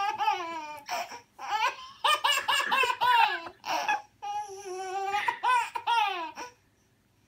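Baby laughing hard in repeated high-pitched bursts of giggles and squeals, some in quick ha-ha pulses, stopping near the end.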